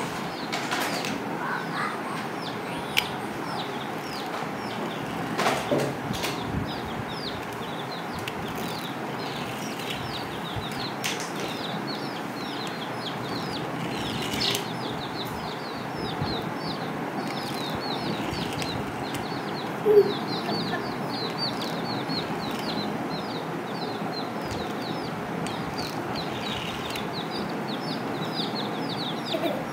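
Several young chicks peeping, many short high, falling peeps overlapping, growing denser in the second half. A few sharp knocks, the loudest about twenty seconds in.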